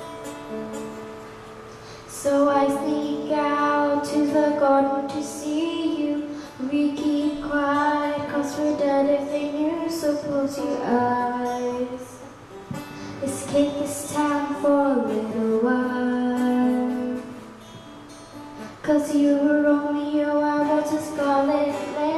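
A young girl singing into a microphone, accompanied by a strummed acoustic guitar. The guitar plays alone for about the first two seconds, and the singing breaks off briefly near the end before starting again.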